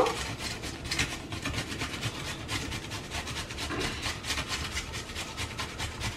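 Raw potato being shredded by hand on a grater: quick, repeated rasping strokes.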